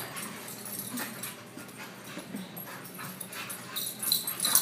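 Two pit bull-type dogs play-wrestling, giving a few short whines, with a louder stretch near the end.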